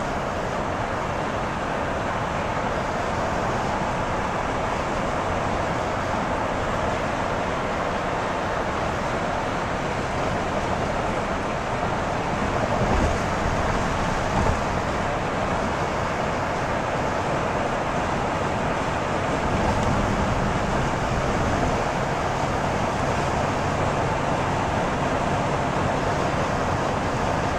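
Steady road noise of a car cruising on a freeway, heard inside the cabin: tyre and engine noise. There are two brief bumps about halfway through.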